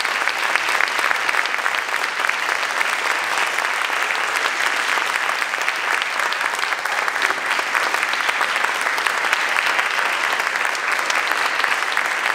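Audience applauding steadily, many hands clapping together into a continuous patter.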